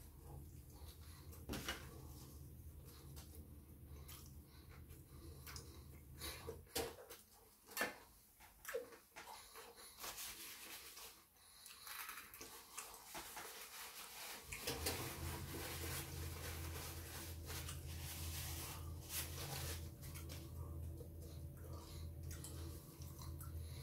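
Quiet eating and food-handling sounds at a table: scattered small clicks, taps and rustles of food containers and packaging, with a few louder taps about seven to nine seconds in. Underneath runs a low steady hum that drops out for several seconds in the middle and returns about halfway through.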